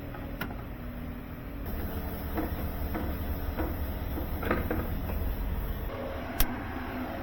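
A few short knocks and clicks, one sharp click near the end, over a steady low rumble and hiss that swells for a few seconds in the middle.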